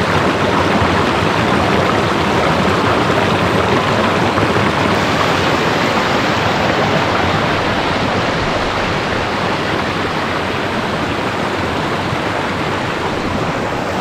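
Swollen, rain-fed stream rushing over rocks in rapids: a steady, loud wash of running water.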